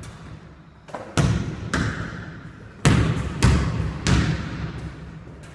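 A basketball bouncing on a hard floor: about six bounces at uneven intervals, each with a short echoing tail.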